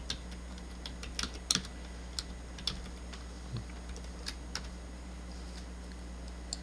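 Computer keyboard being typed on: a dozen or so irregular key clicks, thinning out after about four and a half seconds, over a faint steady low hum.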